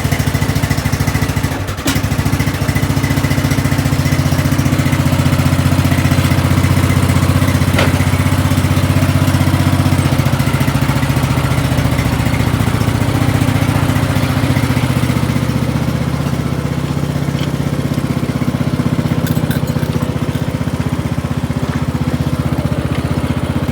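Craftsman DLT 3000 riding lawn mower engine running steadily just after a cold start made without choke, with a brief stumble about two seconds in. The engine note eases a little about fifteen seconds in.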